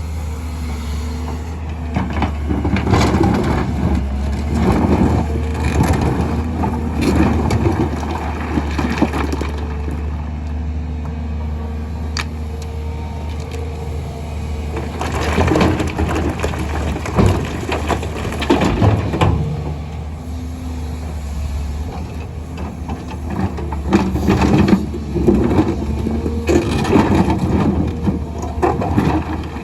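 Excavator engine running under a steady low drone, with three long spells of stone clattering and crashing as loads of rock are dumped and scraped into a truck bed.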